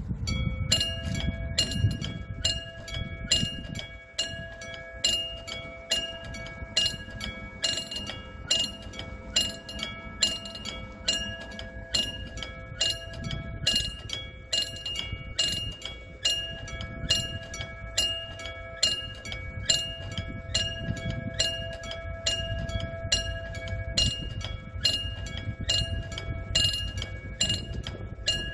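Railroad crossing warning bell ringing in a steady, quick repeating ding, a little more than once a second: the crossing alarm for an approaching train.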